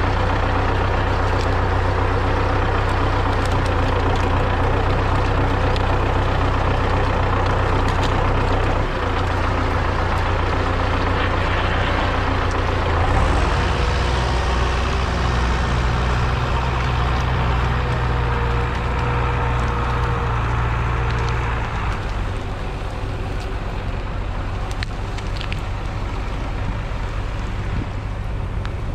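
MTZ-82 tractor's diesel engine running, its note shifting a few times: it changes about nine seconds in, rises about thirteen seconds in, and drops back and gets quieter about twenty-two seconds in.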